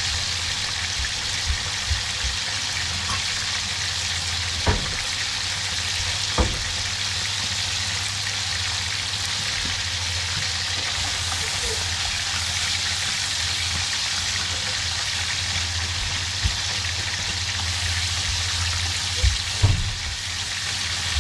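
Small whole fish frying in hot oil in a pan: a steady sizzle. A few sharp knocks stand out, the last pair near the end as a spatula stirs a saucepan of onions and tomatoes.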